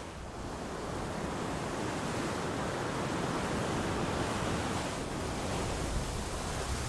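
Steady rushing noise of sea waves and wind, even and unbroken.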